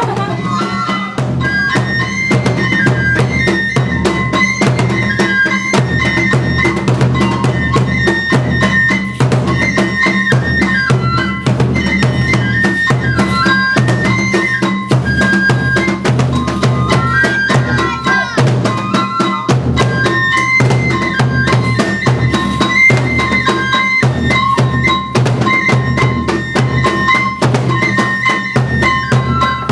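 Kagura festival music: a bamboo flute melody stepping between a few pitches over fast, steady drum and cymbal strokes, played loud and continuously.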